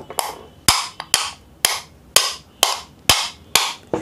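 Hammer striking the motor armature of an RO diaphragm booster pump to drive off its worn, noisy bearing: about eight metal-on-metal blows at a steady two a second, each with a short ring.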